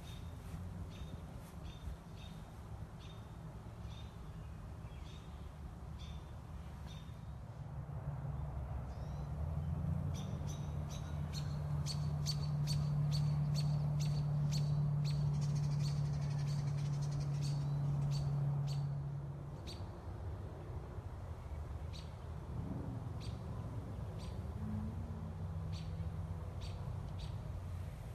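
Small birds chirping in short, repeated high notes. A steady low hum comes in about a third of the way through, is the loudest sound for several seconds, and stops suddenly about two-thirds of the way through.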